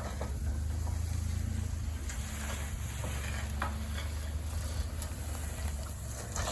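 Pickup truck engine running with a steady low hum, with a crackling hiss and scattered light clicks over it.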